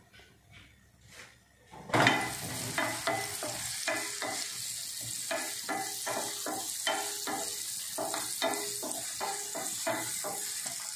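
Chicken sausage slices sizzling in oil in a nonstick frying pan, starting suddenly about two seconds in, while a wooden spatula stirs and scrapes them in quick repeated strokes, about three a second.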